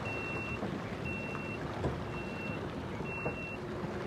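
Electronic warning beeps at a steady high pitch, each about half a second long and repeating roughly once a second. Under them is a low rumble of engine and churning water from a Yamaha FX Cruiser SVHO WaveRunner pulling away.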